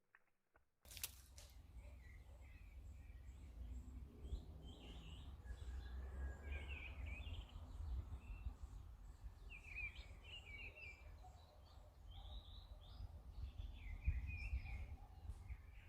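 Small birds chirping on and off over a steady low wind rumble on the microphone, with a brief knock about fourteen seconds in.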